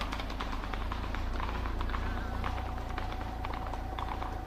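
Horses' hooves clopping faintly and irregularly on a gravel track, over a steady low rumble.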